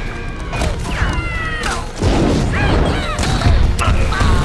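Scrat, the animated saber-toothed squirrel, screaming in a string of shrill squealing cries. A heavy rumble and crashing run underneath, growing louder about halfway through.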